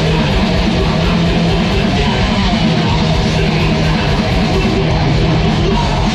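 Thrash metal band playing live at full volume, with distorted electric guitars, bass and drums, heard from inside the crowd in front of the stage.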